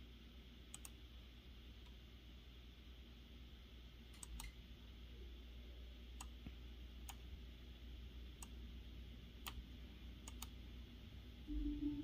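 Faint, scattered clicks of a computer mouse, about a dozen at irregular intervals, some in quick pairs like double-clicks, over a low steady hum. A brief louder low sound comes near the end.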